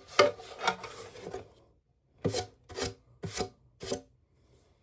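Hard plastic parts of a pet water fountain being handled and scraped against each other. There is a cluster of rubbing in the first second, then four short rasping strokes about half a second apart.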